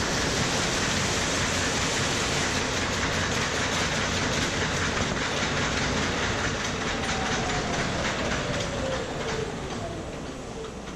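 Massman Talon Supra microwave popcorn bag maker running: a dense, steady mechanical clatter with fast rapid clicking, fading out over the last few seconds.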